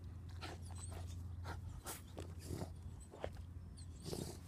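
A dog digging for rats: irregular soft scrapes and snuffles over a low steady hum.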